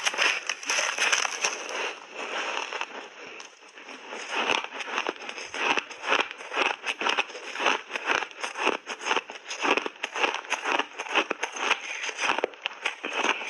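Refrozen block ice being bitten and chewed: a dense run of sharp, crackling crunches several times a second, briefly softer about three to four seconds in.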